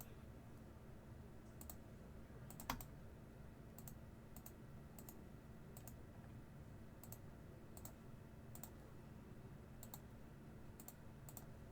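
Faint, scattered clicking at irregular intervals of about half a second to a second, with one louder click about two and a half seconds in, over a low steady room hum.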